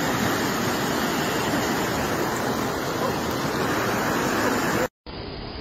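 Floodwater rushing in a swollen river, a steady loud rush of water. It cuts off abruptly about five seconds in, and a quieter, duller rush of water follows.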